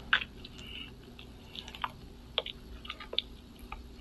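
Faint, irregular small clicks, about a dozen, over low room noise.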